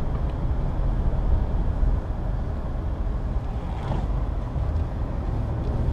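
Cabin sound of a 2005 Chevy Avalanche Z71 pickup driving at steady speed: a low, steady engine and road rumble from inside the cab.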